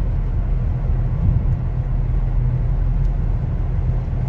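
Car on the move: a steady, loud, low road and engine rumble.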